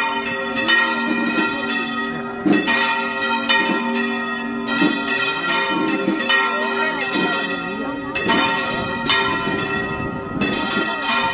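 Church tower bells pealing: a quick, uneven run of strikes whose ringing tones overlap and hang on between blows.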